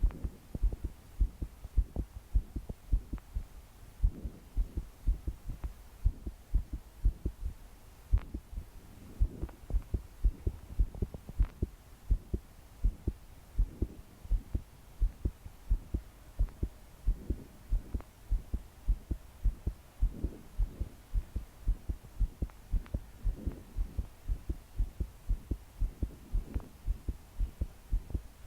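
A young woman's heartbeat pounding fast and hard, a steady run of deep paired thuds: palpitations. Her breathing swells softly now and then behind the beats.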